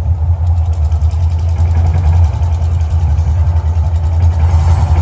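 Deep, loud, steady rumble of the volcano show's eruption sound effects played over outdoor loudspeakers.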